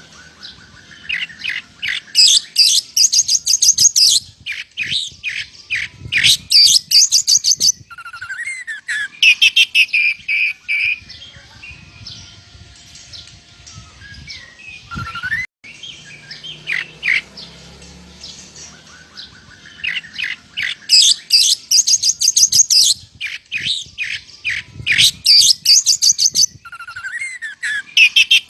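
Oriental magpie-robin (kacer) singing vigorously, its song filled with mimicked lovebird chatter: fast, high-pitched chattering phrases of a second or two, separated by short whistled slurs. The sound cuts out for an instant about halfway through, and the same run of phrases then repeats.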